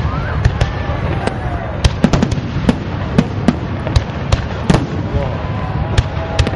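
Aerial fireworks display: a rapid series of sharp bangs, several a second, over a steady low rumble, with whistling tones sliding up and down in pitch.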